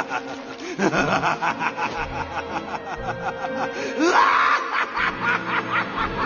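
Laughter in quick repeated pulses, played as a sound effect over background music.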